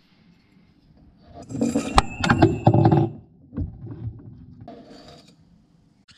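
Metal clinking and knocking as an old kitchen mixer tap and its fittings are handled and lifted out of the worktop. One sharp, ringing metallic clink comes about two seconds in, among several quicker clicks, and a few fainter knocks follow.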